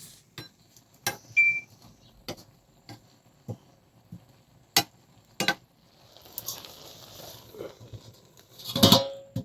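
Dishes and utensils knocking and clinking: scattered sharp knocks every half second to second, a short ringing clink a little over a second in, a soft hiss in the middle, and a louder rattling clatter near the end.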